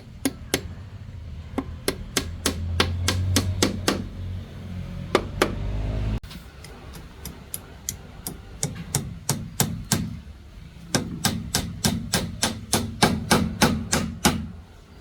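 A hand tool striking repeatedly: quick runs of sharp blows, about three to four a second, with a short break about six seconds in.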